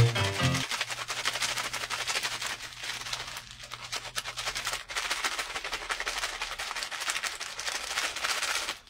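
Plastic snack packet crinkling and rustling in a hand close to the microphone: a dense, continuous crackle. A snatch of music ends about half a second in.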